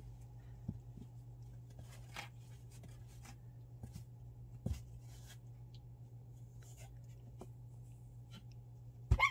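A puppy scrabbling and tussling in a fleece-lined cardboard box: soft scratching and rustling from its paws, a few light thumps, and a louder knock near the end as it bumps into the box and a hanging plush toy. A steady low hum runs underneath.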